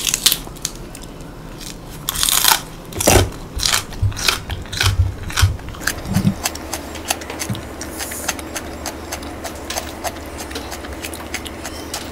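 Close-miked chewing of raw Korean green onion (daepa): a run of crisp, crackly crunches for the first six or seven seconds, then softer, sparser chewing.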